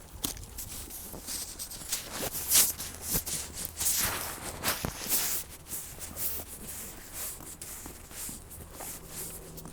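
Footsteps crunching through snow, an uneven run of scuffing steps.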